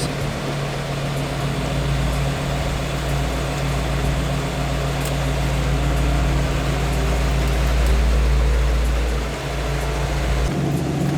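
Carbureted Jeep CJ7 engine running steadily with a low rumble and a constant hum. The deepest part of the rumble drops away near the end.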